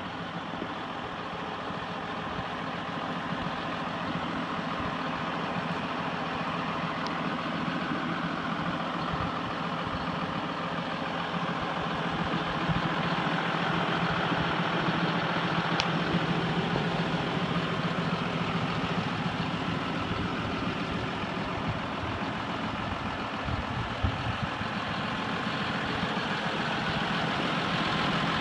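John Deere 6140R tractor's diesel engine idling steadily, growing gradually louder.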